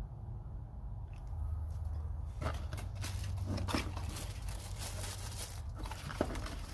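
Handling noise: irregular rustling and small clicks as a tool and its packaging are moved about and opened, with a sharper click near the end.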